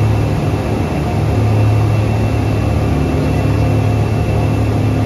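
Speed catamaran's engines running steadily under way: a loud, even low drone with a hiss of noise over it.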